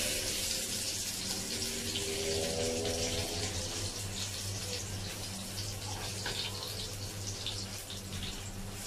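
Marinated lamb chops sizzling in a non-stick frying pan over a gas flame, with scattered crackles and spits as they are moved about the pan. A steady low hum runs underneath.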